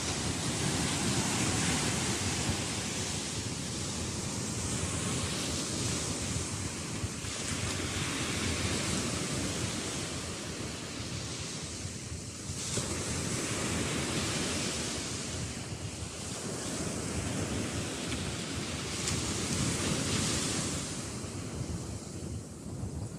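Sea waves washing in, swelling and ebbing every several seconds, with wind rumbling on the microphone.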